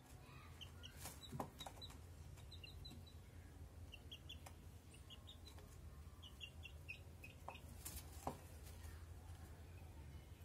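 Parakeet chicks giving faint, short, high chirps in little clusters of two or three, over a steady low hum, with a few soft clicks.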